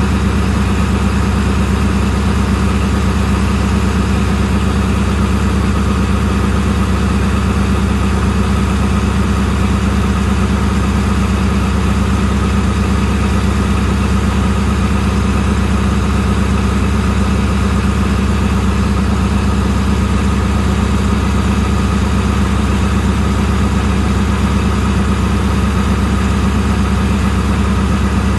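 ZCU-30 diesel-electric locomotive idling steadily at close range, a deep even engine hum with no change in speed.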